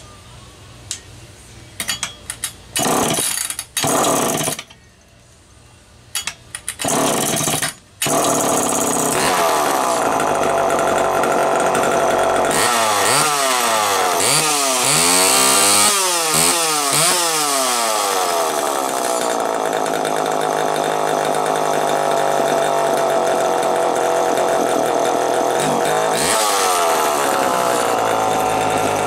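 Homelite EZ Automatic two-stroke chainsaw being pull-started: several short pulls on the recoil starter, then the engine catches about eight seconds in and keeps running. The throttle is blipped several times, the pitch rising and falling, before it settles to a steady run, with another rev near the end. This is a test run after the repair of its Walbro HDC carburetor.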